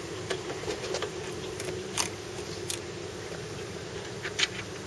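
A few sharp clicks and knocks of parts being handled during assembly of a pedal-drive boat's stainless steel fittings, the loudest about two seconds in and near the end, over a steady low hum.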